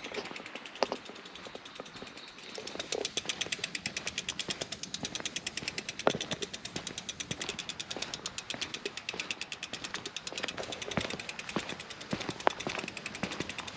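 Rear hub freewheel of a mountain bike ratcheting in a rapid, steady run of clicks as the bike rolls along without being pedalled. A few louder single knocks are scattered through it, from footsteps and the bike on the trail.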